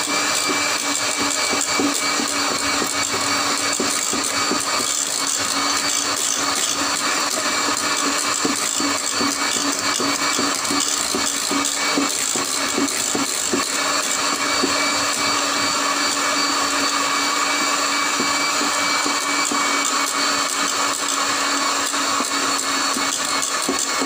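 Electric hand mixer running steadily, a constant motor whine as its twin beaters whip chilled cream in a metal bowl.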